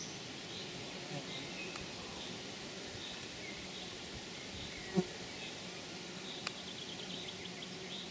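Steady low buzz of a flying insect, with a short high bird call repeating about every 0.7 s. A single sharp knock sounds about five seconds in.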